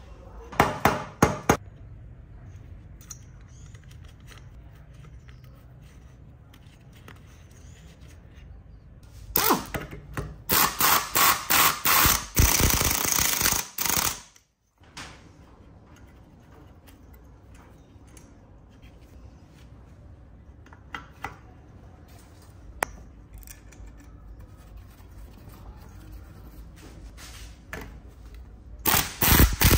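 Rapid, repeated impacts from a workshop tool in short bursts: a brief burst at the start, a longer run of several seconds in the middle, and another near the end.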